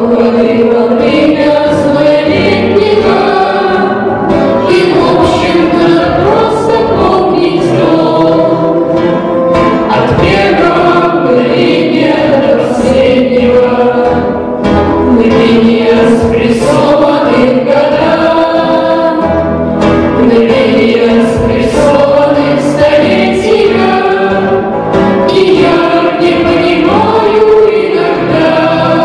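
Music: a choir singing, continuous and loud.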